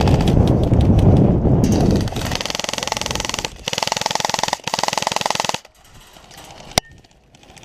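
Airsoft guns firing on full auto: a rapid rattling string about two seconds in, then two more bursts that stop about five and a half seconds in. Before them, a loud low rumble close to the microphone.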